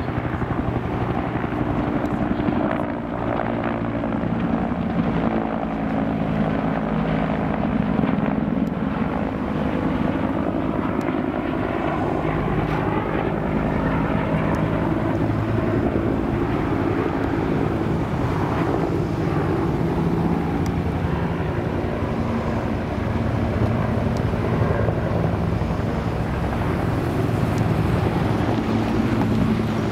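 CAL FIRE Bell UH-1H Super Huey firefighting helicopter flying close overhead, its single turbine engine and two-bladed main rotor running steadily and loud.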